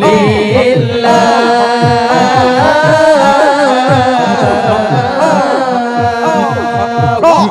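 Zikir saman devotional chanting: several voices sing long held notes with ornamented melodic turns over quick, steady low thumps about four a second.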